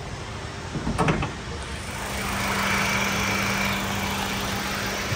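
Honda Amaze's 1.2-litre petrol four-cylinder engine running with a steady hum that gets a little louder from about two seconds in. There is a sharp knock about a second in.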